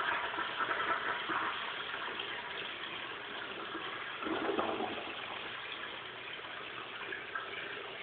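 Crane Galaxy toilet flushing: a loud rush of water that eases off gradually, with a brief surge about four seconds in, then water running on more quietly.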